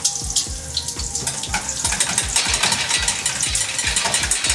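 A whisk beating a raw-egg, Parmigiano and pepper carbonara sauce in a stainless steel bowl: rapid metal clicking that thickens from about a second and a half in. Bacon sizzles in a pan underneath.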